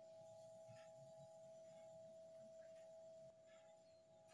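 Near silence: room tone with a faint, steady high-pitched whine, and a few faint soft rustles of yarn being worked with a metal crochet hook.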